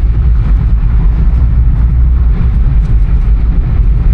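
Car on the move: a loud, steady low rumble of road and wind noise.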